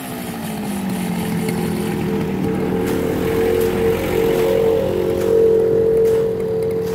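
Backpack brush cutter's petrol engine running at cutting speed, a steady engine drone that grows somewhat louder partway through.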